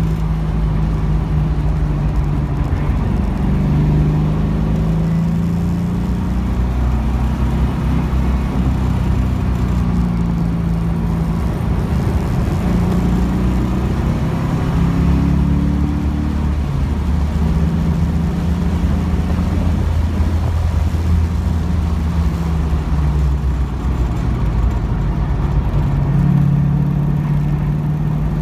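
1975 Pontiac Trans Am's V8 engine heard from inside the cabin at speed on a race track, its note rising and falling repeatedly as it accelerates out of corners and slows into them.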